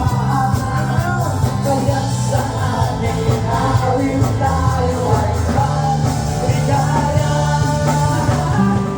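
Live band playing a rock-and-roll song with a singer, loud and steady.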